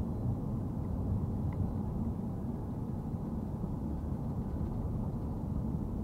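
Steady low road and engine noise of a car driving at an even speed, heard inside the cabin.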